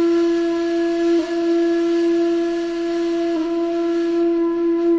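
A single flute note held steadily at a middle pitch, wavering briefly twice: the viral sound said to remind cats of being worshipped in ancient Egypt.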